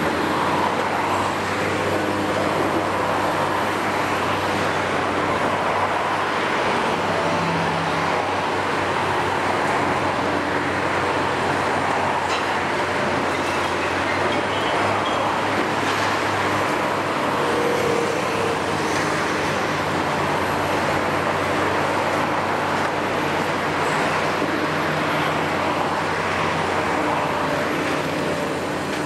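Kiesel KMC 600 demolition excavator's Isuzu six-cylinder diesel running steadily under working load, its hydraulics driving the long boom, with a few faint knocks.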